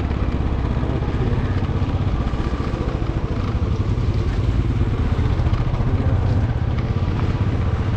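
Motorcycle engine running steadily as the bike is ridden, heard as a rapid, even low beat.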